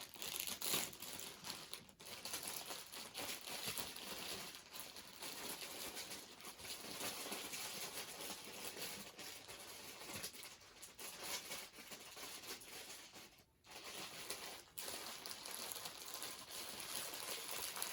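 Small plastic bags of diamond painting drills crinkling as they are handled and sorted: a continuous rustle with many small clicks.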